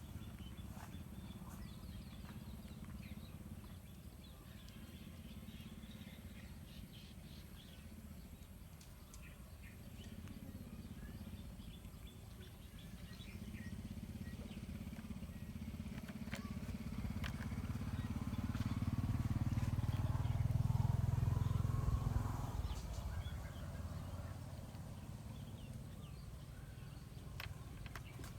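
A motor vehicle's low rumble swells slowly to a peak and fades again, as it passes, over a steady outdoor background with scattered small clicks.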